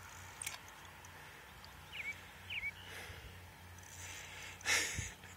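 Quiet outdoor ambience with two short high chirps about half a second apart, and a brief noisy rush near the end, the loudest sound.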